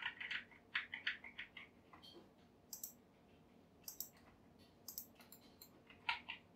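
Faint computer mouse clicks and keyboard key presses in short scattered runs, with quiet gaps between them.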